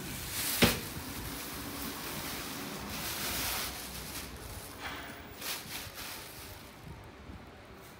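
A sharp knock of a stainless steel bowl being set down, about half a second in. Then a plastic bag rustles in several bursts as a lump of minced pork is tipped out of it into the bowl.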